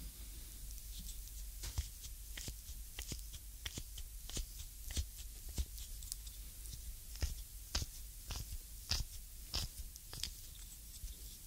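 A reflexology stick pressed and scraped firmly across the creamed sole of a foot, under the toes, giving a string of crisp, crunchy clicks. They come irregularly at first, then more evenly, about one or two a second, in the second half.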